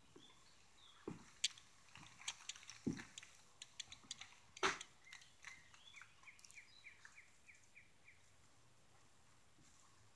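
Scattered knocks and creaks of footsteps on a bare wooden floor, with a small bird chirping a quick run of about eight short falling notes in the second half.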